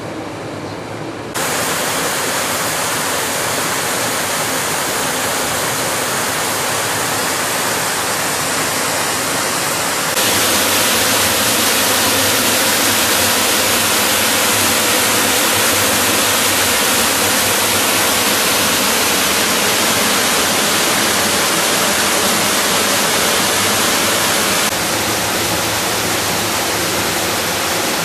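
Steady rush of flowing water, a loud even noise with no pitch. It steps up in level about a second in and again about ten seconds in, and drops a little near the end.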